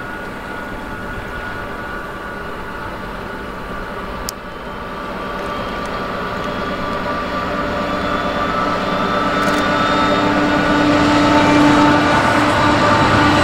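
Diesel-electric freight locomotives approaching, their engines' steady hum growing louder through the second half. There is a single sharp click about four seconds in.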